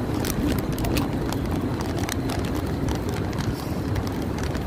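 Steady street traffic rumble with wind on the microphone, dotted with short clicks and taps from the phone being handled.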